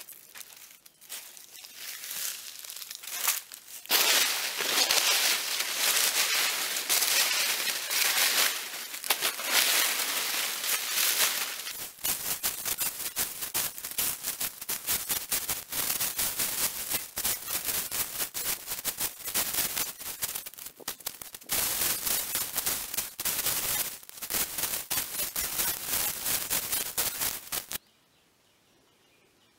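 Dry teak leaves crackling and rustling as they are scooped up by hand and pushed into a woven basket. The dense crackling starts about four seconds in and stops near the end.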